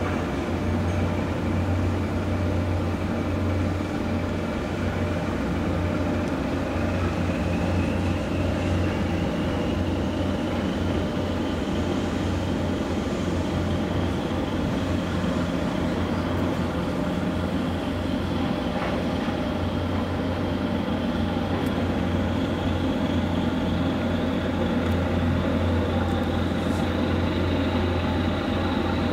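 Ship diesel engines running steadily with a strong low hum. A high whine above it slowly rises in pitch.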